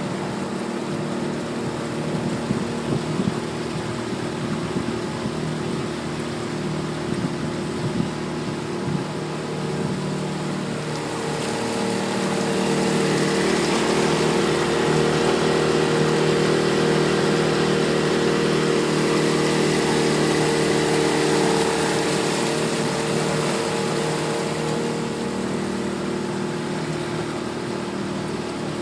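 Mercury outboard motor running steadily as the boat moves along, with water and wind rush. It grows louder a little before halfway through, holds there for about ten seconds, then eases back.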